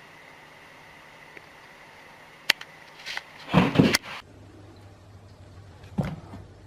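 A sharp knock, then about a second of loud bumping and rustling, and a single thump near the end.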